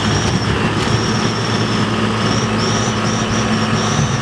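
Heavy diesel engines of a wheel loader and the loaded dump truck it is towing, running steadily under load through mud. A thin high whistle comes and goes over the engine sound.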